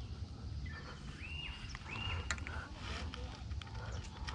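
A bird gives two short whistled calls, each a quick rise into a level note, over a steady low wind rumble on the microphone.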